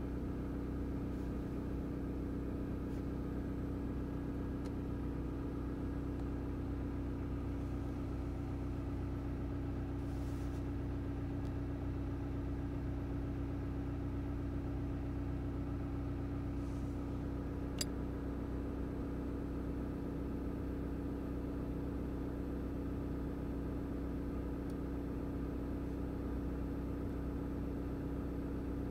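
Mitsubishi Delica D5's engine idling steadily, heard from inside the cabin. A single faint click comes a little past the middle.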